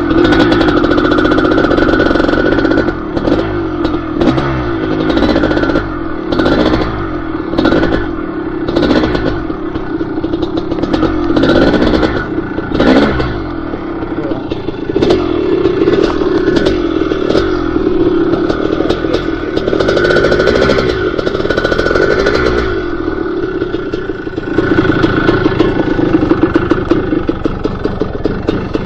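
Dirt bike engine running under varying throttle on a trail ride, with repeated sharp knocks and clatter from the bike over rough ground.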